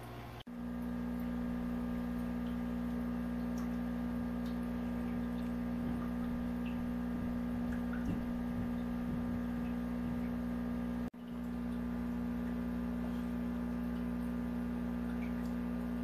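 Steady electric hum of an aquarium pump running, with a few faint ticks; it drops out briefly twice, about half a second in and again about eleven seconds in.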